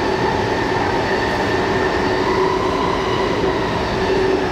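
Kaohsiung MRT Red Line metro car heard from inside while running: a steady rumble of wheels on rail with a steady hum of a few tones over it.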